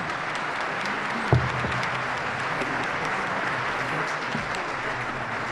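Audience applauding steadily, with a single dull thump a little over a second in.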